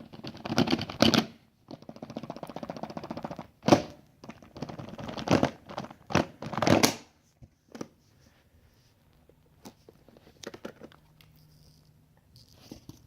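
Packaging of an iPhone 6 box being torn open and handled: crinkling and a steady tearing of plastic wrap for about two seconds, a sharp knock about four seconds in, more crinkling, then quieter scattered clicks and taps as the box and its contents are handled.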